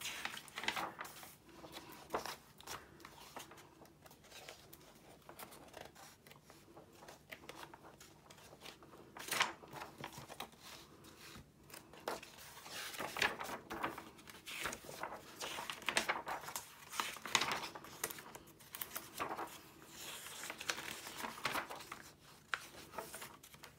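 Paper pages of a thin paperback book being turned and handled: soft rustles and swishes, with louder page turns about nine seconds in and again between roughly thirteen and eighteen seconds.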